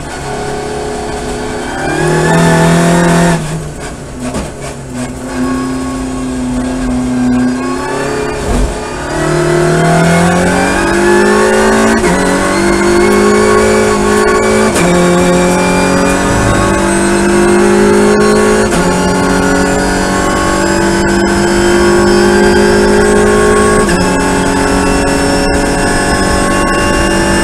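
Audi RS 3 LMS TCR race car's turbocharged 2.0-litre four-cylinder engine, heard from inside the cockpit on a hot lap. For the first eight seconds the revs fall and waver through a corner, then the engine runs at full throttle, its pitch climbing and dropping back at each of four upshifts as the car reaches sixth gear at about 220 km/h.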